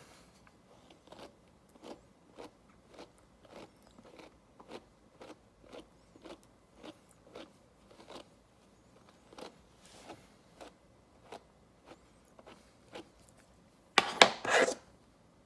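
A brush raking through a Pomeranian's thick coat to work out tangles, in faint, even strokes about two a second. A louder scuffing rustle comes near the end.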